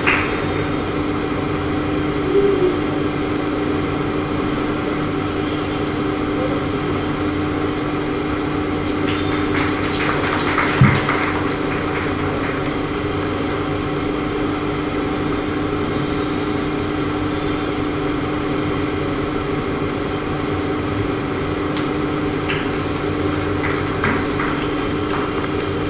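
Steady electrical hum, mainly one low tone with fainter tones above it, as from the hall's electric fans and sound system. There are a few faint clicks and a brief knock about eleven seconds in.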